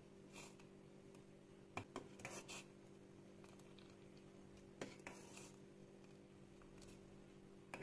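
Near silence over a low steady hum, broken by a few faint clicks and light knocks of kitchen utensils on dishes: a cluster about two seconds in, two more around five seconds, and one at the end.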